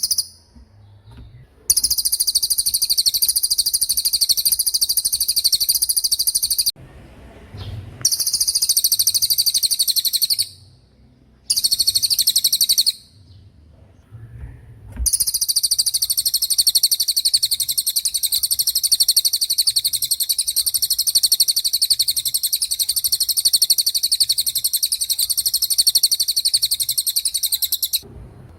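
Cililin bird singing its 'tembakan' song: very high, rapid trills in four bursts, the first three a few seconds each with short pauses between, the last running unbroken for about 13 seconds.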